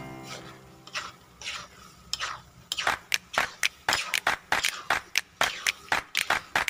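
Metal spoon stirring and scraping a thick mixture of grated santol and coconut milk in a metal pan. The strokes are sparse at first, then come about four a second from about halfway through.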